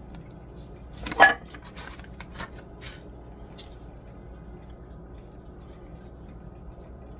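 A few light clinks and knocks of kitchen utensils against a metal baking pan, the loudest one just over a second in, then only a steady low hum.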